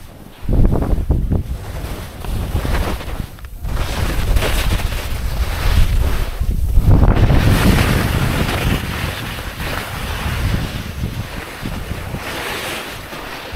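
Wind rushing and buffeting over the microphone during a fast ski descent, with skis scraping and hissing through chopped-up snow in surges from turn to turn; it starts about half a second in.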